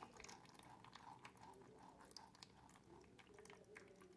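Near silence with faint, scattered soft clicks and squishes of thick cashew-apple pulp straining through a fine mesh sieve into a plastic bowl.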